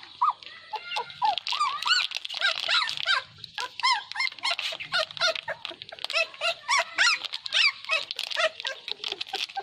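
Puppies whining and yelping in a quick string of high-pitched squeaky calls, many following close on one another.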